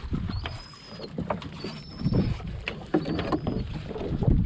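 Gillnet being hauled by hand over the side of a small fibreglass boat: uneven pulls of wet net rustling and knocking against the hull, with scattered clicks. A faint, short, high squeak recurs about every second and a half.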